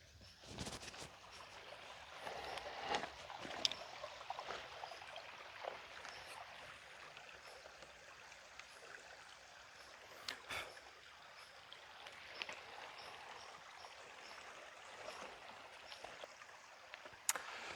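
Small shallow stream trickling and babbling faintly, with a few sharp clicks scattered through it.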